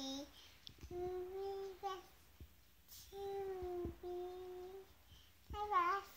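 A toddler singing wordlessly in a few long, held notes, then a louder, wavering note near the end.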